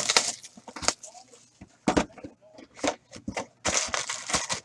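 A sealed box of hockey trading cards being torn open by hand: packaging crinkling and ripping in a quick run of sharp crackles, with a longer stretch of continuous crinkling near the end.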